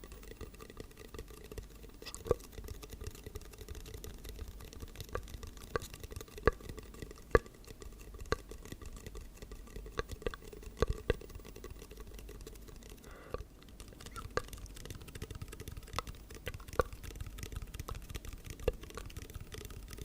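Irregular light ticks or drips, one or two a second at uneven spacing, over a faint steady low hum.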